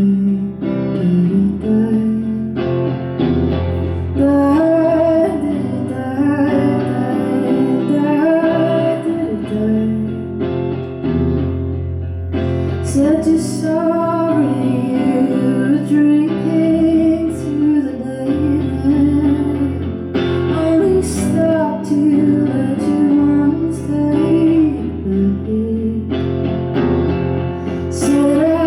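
Live solo song performance: a woman singing over her own guitar.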